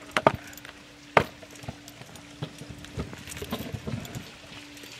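Kick scooter rolling over flagstone paving, its wheels and deck knocking and clacking on the stone joints: two sharp knocks near the start and about a second in, then smaller scattered clacks, over a faint steady low hum.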